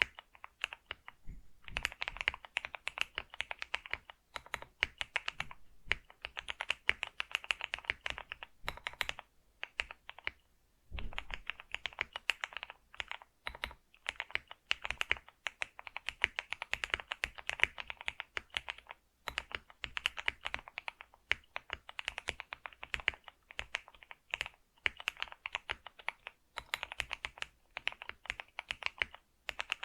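Computer keyboard being typed on steadily: fast runs of key clicks in bursts of a few seconds, broken by short pauses.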